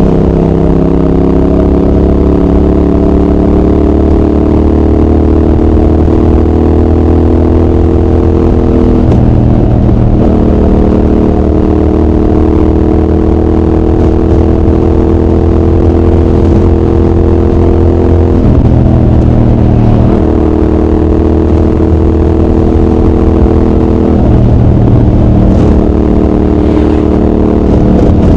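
Triumph Speed Twin 1200's parallel-twin engine pulling under way, its exhaust note climbing slowly in pitch and breaking at three gear changes, about 9, 18 and 24 seconds in.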